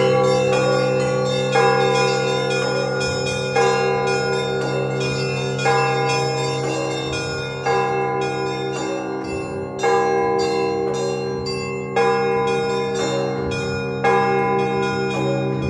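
Russian Orthodox church bells ringing to call people to the Sunday service. A large bell is struck about every two seconds, its low tone ringing on between strikes, while smaller bells chime rapidly and continuously over it.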